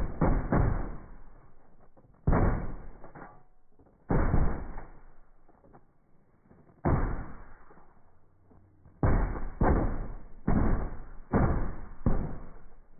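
Shotguns firing at geese overhead: about ten sharp shots, each trailing off into a short echo, spaced one to three seconds apart and coming quicker near the end.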